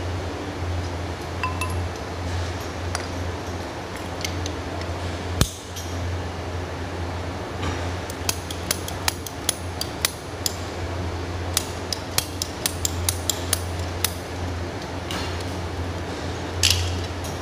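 Small metal and plastic pipe fittings and a hand tool clicking and clinking as they are handled and sorted: one sharp knock about five seconds in, then a quick run of short clicks and a brief clatter near the end, over a steady low hum.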